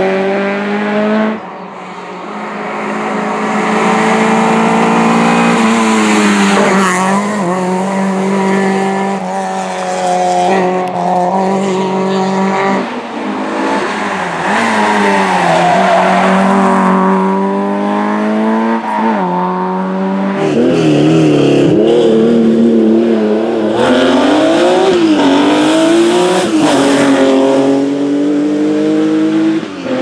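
Historic rally cars, a Honda Civic hatchback and a Peugeot 205, driven hard one after another, engines revving high. The pitch climbs and then drops sharply again and again through gear changes and lifts for corners.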